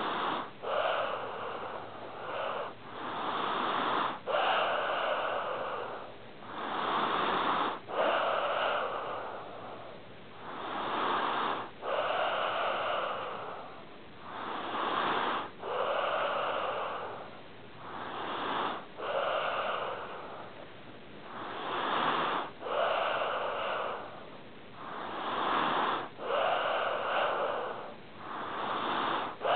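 A sleeping pet snoring in slow, regular breaths, about one every three to four seconds, each breath in two noisy parts with a short break between.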